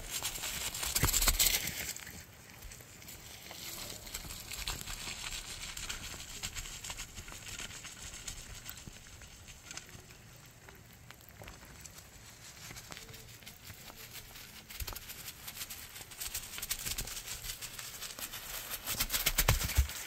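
Stone roof roller rolling over a packed-earth roof, a continuous gritty crackling crunch as it compacts the mud to seal it against rain. It is loudest about a second in and again near the end, when the roller passes close.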